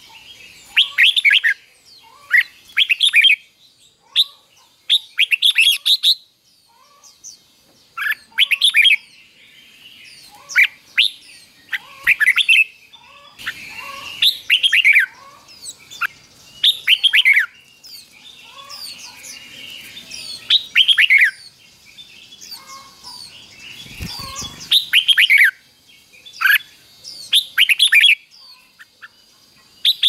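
Caged red-whiskered bulbul singing its short, repeated 'doubled' song phrases, each a quick run of falling whistled notes, coming about every two seconds. A low thump sounds about two-thirds of the way through.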